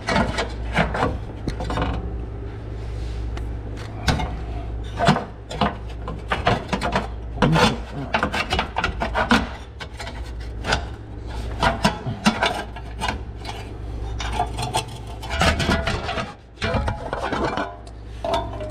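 Thin sheet-metal exhaust heat shield on a Ford Explorer being flexed and pushed by hand, scraping and clicking irregularly against the catalytic converter and its mounts, over a steady low hum.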